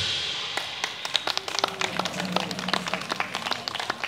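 Scattered audience clapping at the end of a drum-kit performance, starting about half a second in, as the ring of the last crash cymbal dies away.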